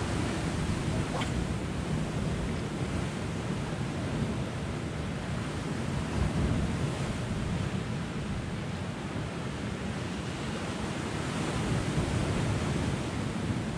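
Sea surf washing steadily against a rocky shore, with wind rumbling on the microphone.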